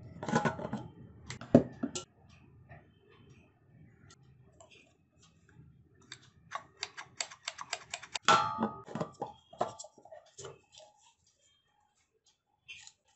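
Milton Thermosteel carafe's black plastic screw lid being twisted and handled, making plastic clicks and knocks. A couple of loud knocks come near the start, and a quick run of about five clicks a second comes in the middle.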